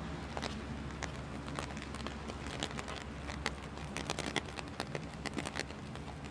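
Walking on a wet city sidewalk in rain: irregular sharp ticks of drops and footsteps close by, over a steady low hum of city traffic.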